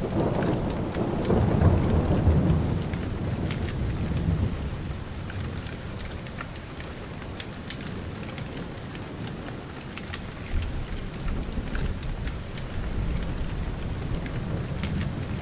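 Steady rain with rolling thunder. A low rumble swells in the first few seconds and comes back in the second half.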